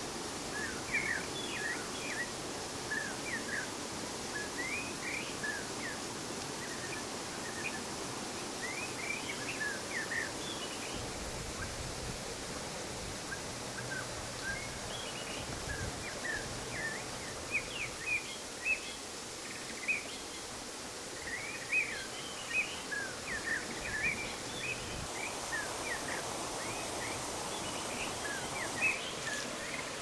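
Many short bird chirps, scattered and irregular, over a steady rushing hiss of flowing stream water.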